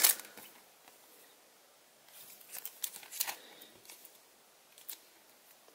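Trading cards in plastic sleeves and holders being handled and set down on a table: faint plastic rustling and a few light clicks, starting about two seconds in, with one more click near the end.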